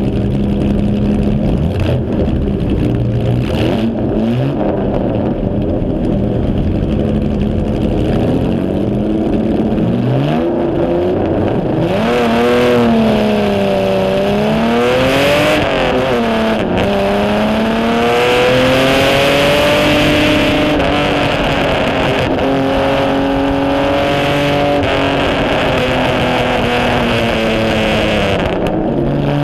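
Onboard sound of a 1951 HW Alta-Jaguar's Jaguar straight-six engine at a race start. It is held at steady revs on the grid, then about ten seconds in the revs rise as the car pulls away, and they climb and drop repeatedly through the gear changes as it accelerates.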